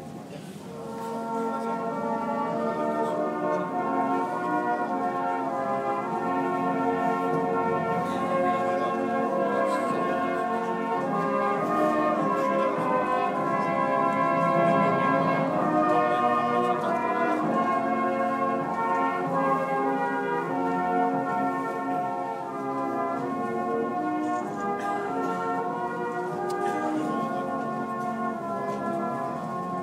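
Brass band playing held chords, coming in about a second in, swelling to its loudest around the middle and easing off toward the end.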